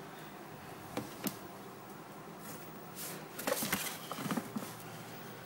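Light clicks and taps on plastic: two sharp clicks about a second in, then a short burst of tapping and rustling in the second half, as a hand moves pieces of cooked chicken around a plastic food dish in a plastic tub.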